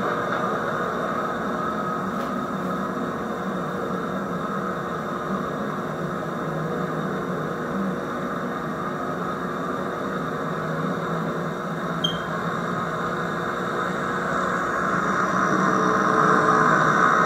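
HO-scale model train running on the track: a steady whir of motor and wheels that grows louder near the end as the diesel locomotive passes close by. A single short click about twelve seconds in.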